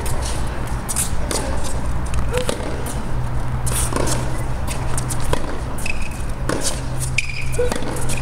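Tennis rally on a hard court: sharp racket-on-ball hits every second or so, mixed with shoe scuffs and footsteps on the court surface and a couple of brief squeaks near the end, over a steady low hum.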